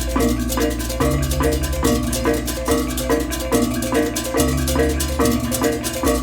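Balinese baleganjur gamelan playing at full tilt: rapid interlocking ceng-ceng cymbal clashes over repeating reyong gong-chime figures and kendang drums, with deep gong and kempur strokes ringing underneath and changing every second or so.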